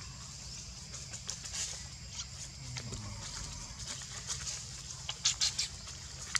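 A macaque walking over dry leaf litter, its steps crackling in short bursts that are loudest about five seconds in, over a steady high drone of insects.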